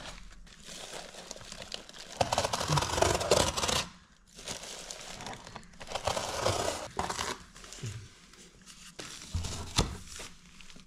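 Cardboard and sticky duct tape crinkling and tearing as they are handled and pulled free, with plastic sheeting rustling, in two longer stretches, and a sharp click about a second before the end.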